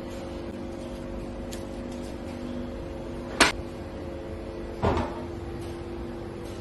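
Steady low machine hum with two sharp knocks, one about three and a half seconds in and a duller one about a second and a half later.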